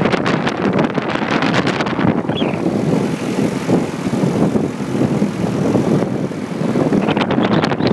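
Wind buffeting the microphone on a moving motorcycle, over the motorcycle's engine drone and street traffic. The buffeting eases from about two seconds in and picks up again near the end.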